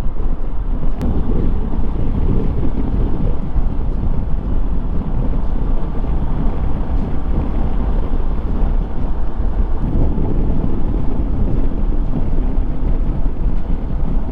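Wind buffeting the microphone of a moving motorcycle, over the steady running of a Royal Enfield Himalayan's single-cylinder engine at cruising speed.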